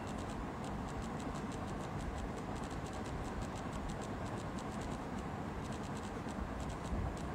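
Steady background noise with many faint, irregular ticks.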